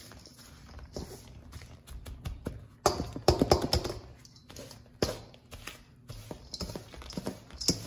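Pastry blender cutting butter into a crumb topping in a stainless steel bowl: irregular clicks, taps and scrapes of the metal blades against the bowl, busiest and loudest about three seconds in.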